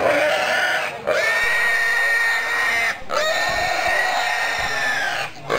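Domestic pig, trussed for slaughter, squealing: three long, high screams of about two seconds each, with a short break for breath between them.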